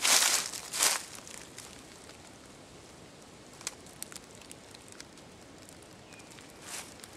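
Footsteps crunching through fallen leaves: two steps at the start, then a pause of several seconds broken only by a few faint ticks.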